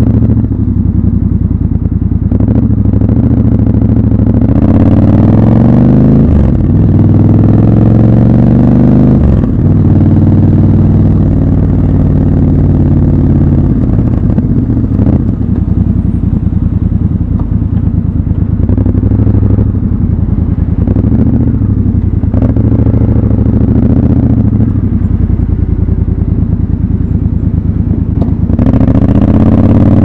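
Triumph Scrambler 1200 XC's 1200 cc parallel-twin engine pulling away and accelerating through the gears. Its pitch rises and then drops sharply at each upshift, about 6 and 9 seconds in. It settles into a steady cruise with some rises and falls, and climbs again near the end.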